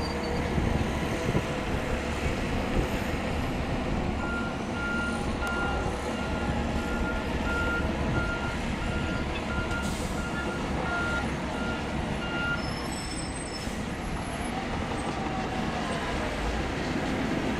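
Heavy diesel engines of a Shantui DH17C2 bulldozer and dump trucks running steadily. A reversing alarm beeps about twice a second from about four seconds in until a little past twelve seconds.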